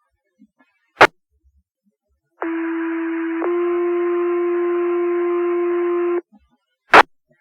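Fire dispatch radio paging tones: a key-up click, then a two-tone sequential page, a steady tone for about a second stepping up to a slightly higher tone held for about three seconds, then another click as the transmitter keys again. These tones alert the Blyth fire station's pagers.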